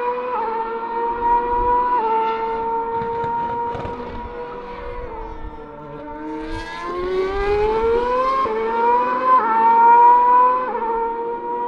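Formula 1 car's V8 engine running at high revs on track, a high whining note that steps down briefly at each upshift. About halfway it falls lower, then climbs steadily through the gears again.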